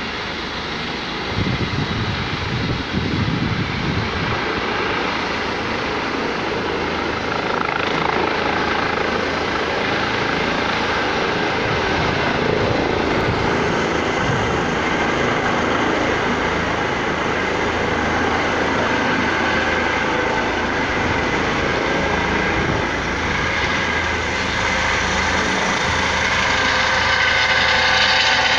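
Rescue helicopter's turbine engines and rotor running on a rooftop helipad. The sound grows steadily louder and is loudest near the end, as the helicopter lifts off, with a high turbine whine over the rotor noise.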